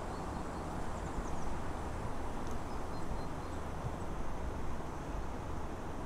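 Steady outdoor ambience: an even low rumble of background noise, with a few faint high bird chirps.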